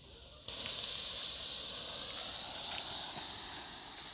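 Colour smoke fireworks hissing steadily as they burn and pour out smoke and sparks. The hiss starts suddenly about half a second in and holds.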